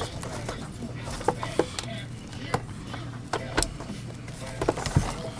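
Irregular sharp clicks and knocks of tools and plastic parts being handled while a vacuum power brush head is taken apart, some with a brief ringing tone, over a steady low hum.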